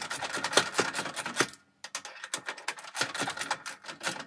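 Ratchet wrench clicking in quick strokes while bolts are tightened under a riding mower's engine, with a short pause about one and a half seconds in.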